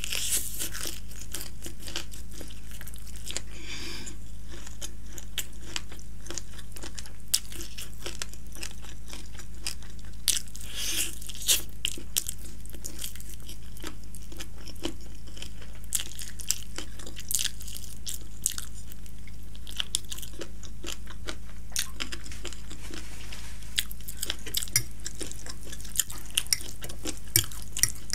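Close-miked chewing of crispy fried chicken: repeated crunches and small clicks at an irregular pace, over a steady low hum.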